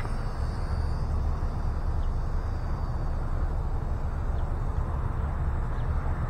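Steady low rumble of wind buffeting the microphone, with a faint thin high-pitched whine during the first few seconds.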